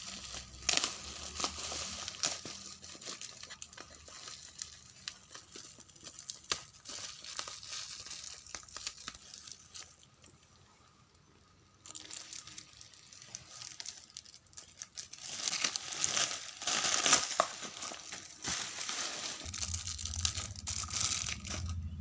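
Parcel packaging crinkling and tearing as it is unwrapped by hand, in irregular rustles and sharp crackles. It goes quieter for a couple of seconds about halfway through, and the crinkling is loudest a little after that.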